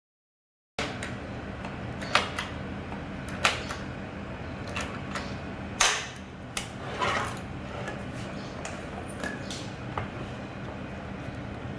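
Scattered sharp clicks and knocks of hand work on cabinet door hardware, over a steady low hum. The sound begins abruptly just under a second in, after dead silence.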